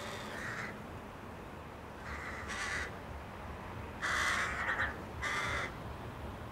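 Crow cawing: four caws a second or two apart, the longest and loudest about four seconds in.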